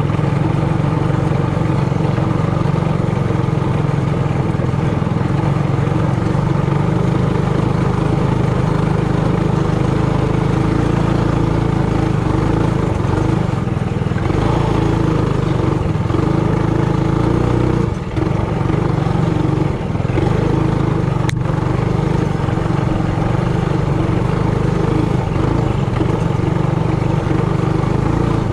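Trailmaster Hurricane 200X mini bike's single-cylinder four-stroke engine running steadily under way on a sandy trail. It dips briefly twice a little past the middle, and there is one sharp click soon after.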